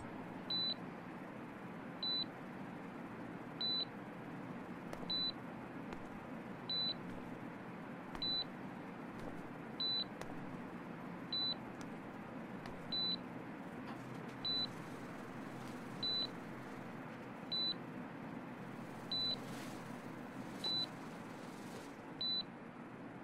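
Bedside patient monitor giving its heart-rate beep: a short high beep repeating evenly about every one and a half seconds, over a steady low hiss.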